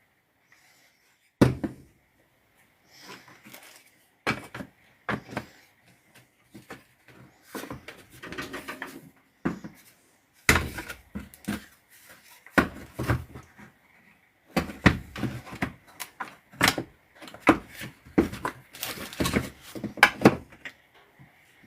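Irregular clicks, taps and knocks as a Hitachi 18V cordless angle grinder's housing and internal parts are handled and fitted back together, the knocks coming more often in the second half.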